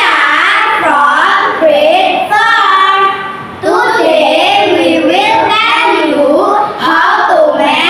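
Children singing a song together in two phrases, with a short break about three and a half seconds in.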